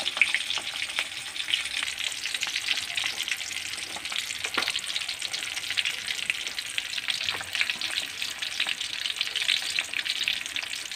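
Milkfish pieces frying in oil in a steel wok, sizzling with a dense, constant crackle and scattered louder pops of spattering oil. The fish is close to done but still giving off moisture, so the oil keeps popping.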